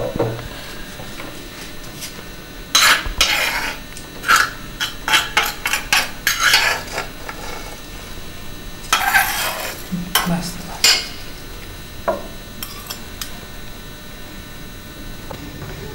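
A spoon scraping and clinking against bowls, in quick clusters about three to seven seconds in and again around nine to eleven seconds, then a few faint taps.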